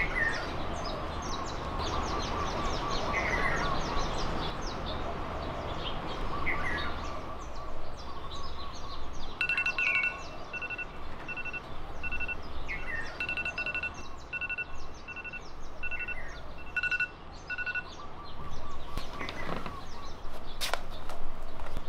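Birds chirping and calling over outdoor background noise, with a long run of evenly spaced high beeps in the middle and a few sharp clicks near the end.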